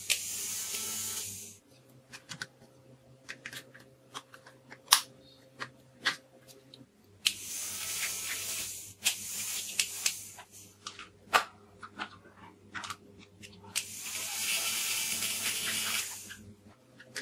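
Battery-operated toy bubble guns' small electric fan motors whirring in three runs of a few seconds each, with scattered sharp plastic clicks between the runs.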